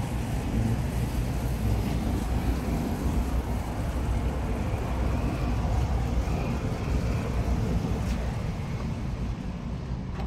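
Steady low rumbling and rushing noise of wind buffeting the microphone, easing slightly near the end.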